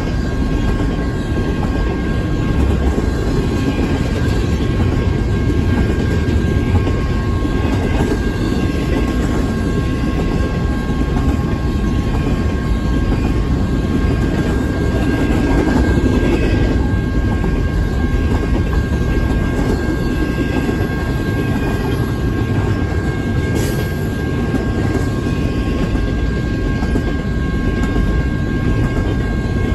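Double-stack intermodal container cars of a freight train rolling past close by: a steady rumble of steel wheels on the rails that does not let up.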